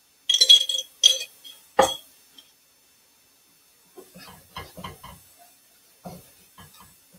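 Glass jar clinking and knocking against the rim of a skillet several times as cornstarch slurry is poured into gravy, the loudest knock just under two seconds in. Then quieter scraping and clicking of a whisk stirring the slurry into the gravy.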